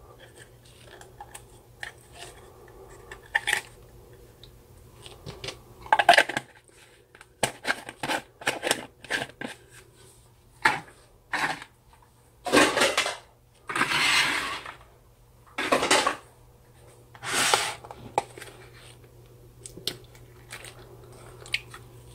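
Plastic slime jars and a plastic tub being handled: scattered light clicks and taps, then a run of short crackling noises, each under a second, through the middle.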